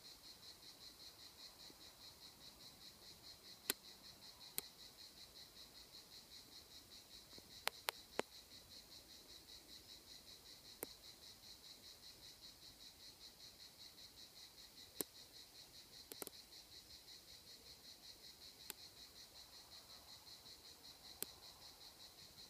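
Faint insect chirping in a steady rhythm, high-pitched, about four to five pulses a second. About ten sharp clicks are scattered through it.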